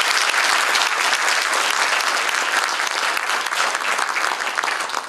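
Audience applauding after a lecture: steady, dense clapping from a hall full of people, easing off slightly toward the end.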